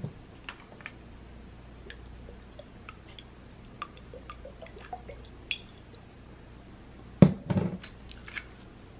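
Small ticks and wet drips as hot sauce is shaken onto a fried birria taco, then a loud bite into the crisp taco shell about seven seconds in.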